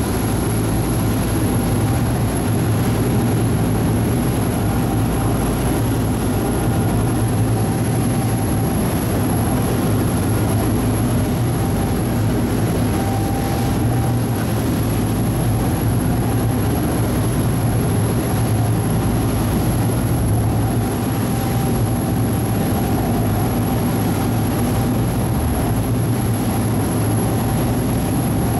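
Ferry engines running steadily, heard aboard the boat as a loud, even low drone that does not change.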